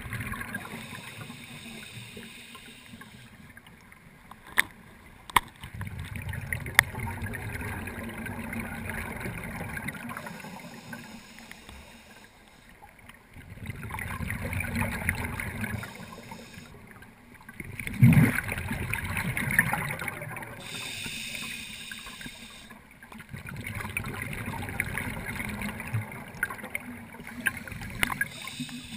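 Scuba diver's breathing heard underwater: bubbly rushing swells and fades every few seconds as breaths are exhaled, with three sharp clicks about five seconds in.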